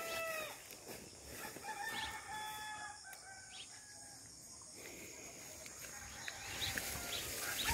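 Roosters crowing faintly, several long drawn-out crows one after another, each held on one pitch and dropping away at the end.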